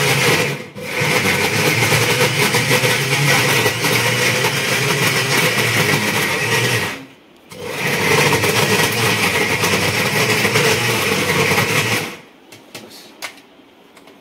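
Electric mixer grinder running at full speed, grinding raw mutton in its stainless steel jar. It cuts out briefly about half a second in and again around seven seconds in, then stops about two seconds before the end, leaving a few light clicks.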